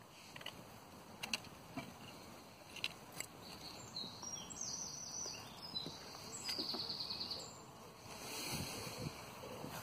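Quiet outdoor ambience with scattered faint clicks and rustles, and a small bird singing two short, rapid, high trills about four and six and a half seconds in.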